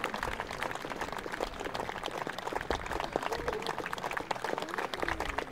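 Audience applauding steadily, with a few faint voices in the crowd.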